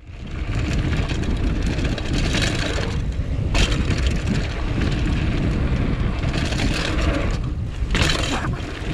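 Mountain bike rolling fast down a dirt trail, heard through an action camera: tyres crunching and the bike rattling over loose ground under a heavy wind rumble on the microphone. There are two sharp clattering knocks, about three and a half and eight seconds in.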